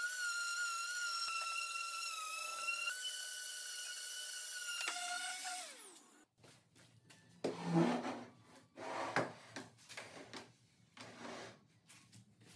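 Handheld electric sander running against the wooden chair with a steady whine, falling in pitch and stopping about six seconds in. Scattered light knocks and rubbing of wood follow.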